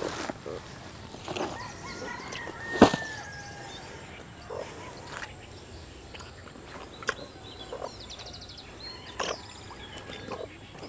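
Farmyard ambience: fowl calling, with a brief quick chirping about eight seconds in. Scattered rustles and knocks, the loudest a sharp knock about three seconds in.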